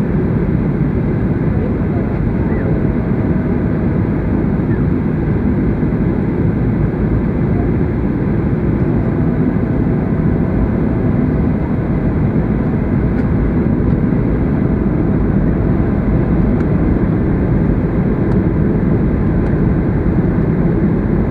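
Steady cabin noise inside a Boeing 737-800 in flight: a constant low rumble of its CFM56-7B engines and the airflow over the fuselage, heard from a seat behind the wing.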